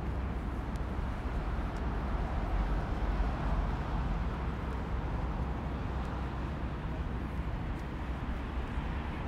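Steady outdoor street ambience: a continuous hum of road traffic with no single sound standing out.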